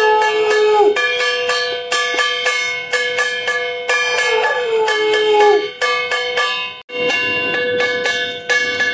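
Conch shell (shankha) blown twice by a young child: a short wavering note right at the start and a longer one about four seconds in, each bending down in pitch as the breath runs out. Behind it runs steady, rhythmic bell ringing.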